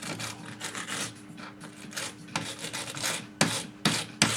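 Hand-filing strokes scraping clean the teeth of a toothed rack, irregular rubbing with a few sharper, louder strokes near the end.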